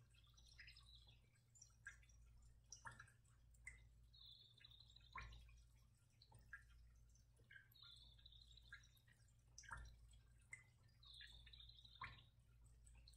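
Near silence, with faint drip-like plinks and a short high tone that comes back about every three and a half seconds, over a low steady hum.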